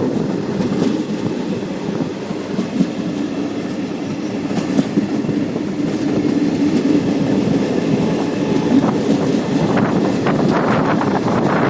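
Rajgir Intercity passenger train running along the track: a steady rumble, with the wheels clicking over the rail joints more often near the end.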